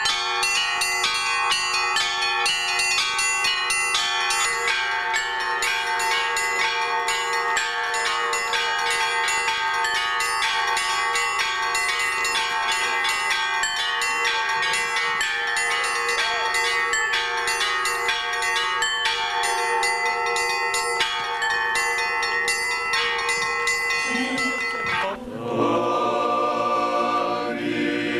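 Russian Orthodox bells rung by hand from ropes on a portable frame of bronze bells: a fast, continuous peal of rapid strikes over the bells' held ringing. About 25 seconds in, the bells cut off and voices singing take over.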